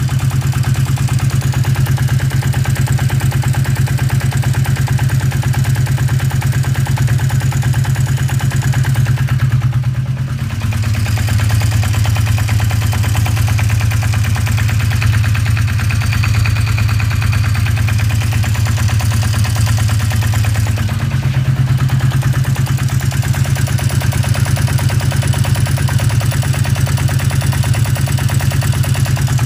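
1981 Yamaha XS400 2A2's air-cooled parallel-twin engine running at low speed, with a knocking, clattering, rattling noise from the engine that the owner finds abnormal. Its speed dips slightly about ten seconds in and picks up again about ten seconds later.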